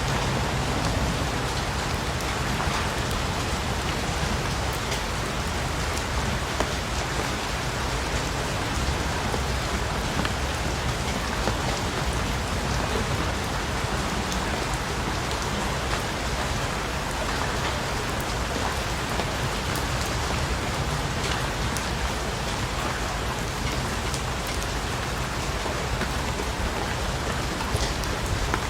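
Steady rain falling on a surface, a dense even hiss with many small drop ticks.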